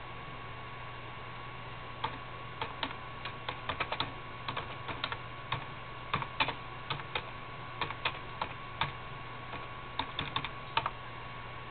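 Irregular light clicks, a few to several a second, starting about two seconds in, over a steady hiss with a low hum and a faint steady tone.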